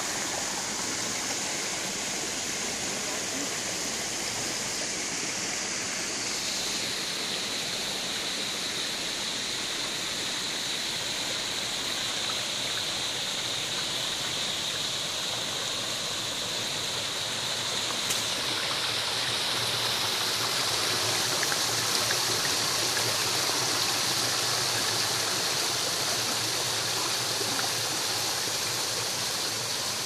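Water running and splashing steadily over the rocks of a man-made stone waterfall and stream into a pool. It grows a little louder past the middle.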